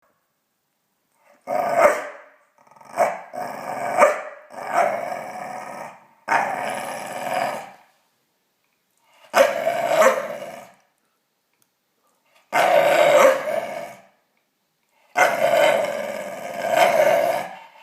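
Staffordshire bull terrier making long play growls in repeated bouts of a second or two each, with short pauses between. It is growling during ball play.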